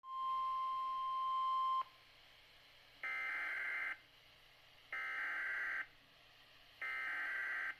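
Weather-radio emergency alert tones: a steady single-pitch warning tone for just under two seconds that cuts off abruptly, then three one-second bursts of buzzy digital SAME data tones, evenly spaced about two seconds apart, which encode the warning header.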